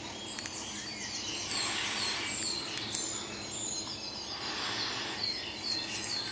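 Dawn chorus: many songbirds singing at once, a dense overlap of high whistles and chirps.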